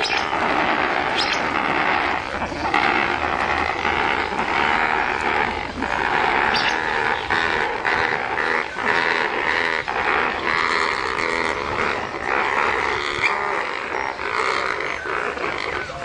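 A flock of flamingos honking together in a dense, unbroken chorus during their group courtship display, the birds marching together with necks stretched up.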